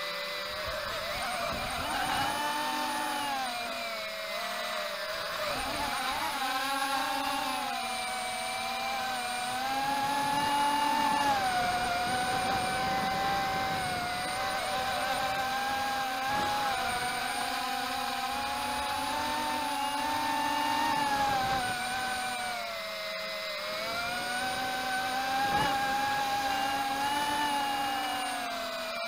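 Walkera Rodeo 110 mini racing quadcopter's motors whining in flight, the pitch rising and falling smoothly as the throttle changes.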